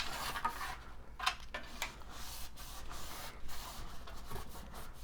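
Wiping and scrubbing inside a metal computer case after a spritz of cleaner, an uneven rubbing with a few short sharp scrapes.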